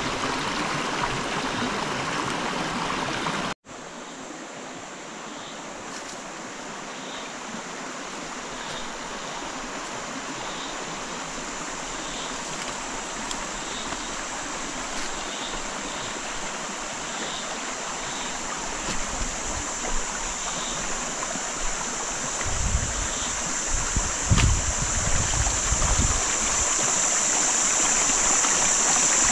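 Creek water running over rocks, a steady rush that cuts out briefly a few seconds in and then grows slowly louder. A few low thumps come between about two-thirds and seven-eighths of the way through.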